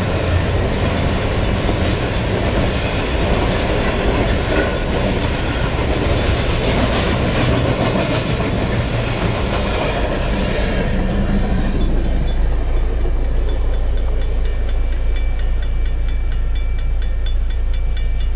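Coal train hopper cars rolling past, wheels clicking over the rail joints, until the last car passes about twelve seconds in and the rolling noise fades. After that a steady low hum of an idling car engine remains.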